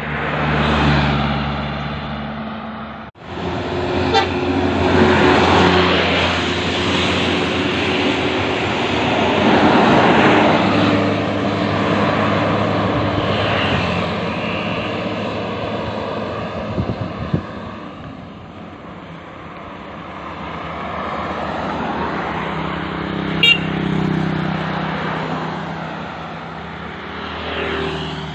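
Road traffic passing close by: cars, motorbikes and buses, each pass swelling and then fading. Held horn notes sound several times, near the start, around five seconds in, and again after twenty seconds.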